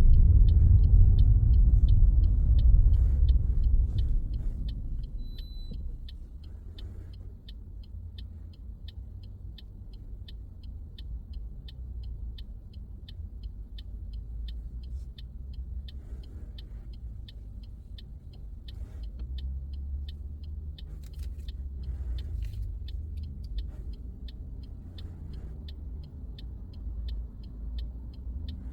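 A car's road and engine rumble, heard from inside the cabin, dying away over the first few seconds as the car slows, then running on at a low level. Throughout, a steady ticking about twice a second, typical of the turn indicator signalling a right turn.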